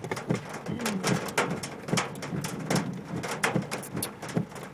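Irregular sharp taps of storm rain and light hail striking the vehicle, a few a second.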